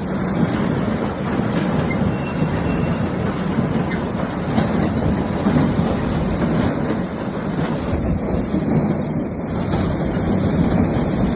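Farm machinery running steadily, a continuous mechanical noise without let-up as the corn harvest goes into the crib.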